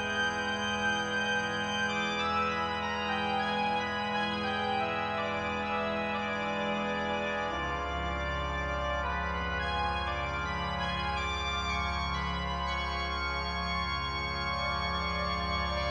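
Background music of long-held chords, with a deeper bass note coming in about halfway through.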